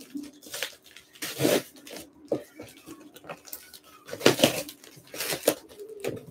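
Scissors cutting through packing tape on a cardboard shipping box, with irregular scrapes, snips and rustles of tape and cardboard flaps.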